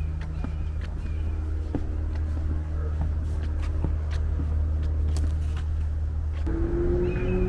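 Footsteps on wooden boardwalk planks, heard as scattered light clicks over a steady, low mechanical hum. About a second before the end, the hum changes and a higher steady tone joins it, then shifts down in pitch.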